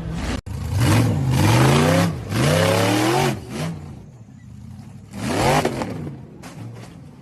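Off-road vehicle engine revving hard, its pitch climbing and falling several times. There is a brief gap about half a second in, it eases off after about four seconds, and it revs once more near the end.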